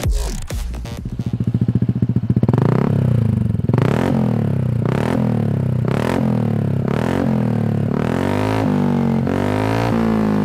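Motorcycle engine through an aftermarket racing exhaust, idling with a rapid pulsing beat and then revved in short repeated blips, about once a second, each rising and falling in pitch.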